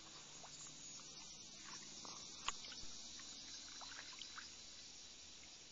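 Faint sounds of a canoe on calm water: a few soft drips and light knocks over a steady faint hiss, the sharpest knock about two and a half seconds in.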